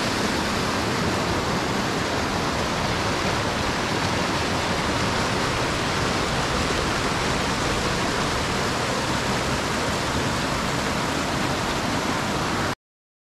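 Steady rush of whitewater, cutting off suddenly near the end.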